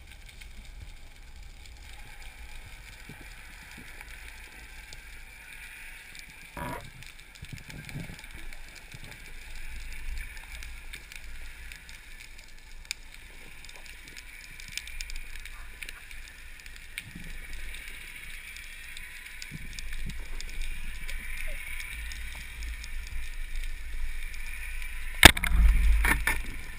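Underwater ambience on a speargun-mounted camera: a steady hiss with a few soft knocks, then, about a second and a half before the end, one sharp crack and a low thump as the wooden band-powered speargun fires.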